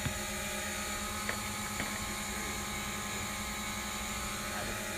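DJI Mavic Pro quadcopter's motors and propellers running with a steady multi-tone whine, with a few sharp clicks at the start and about a second and a half in.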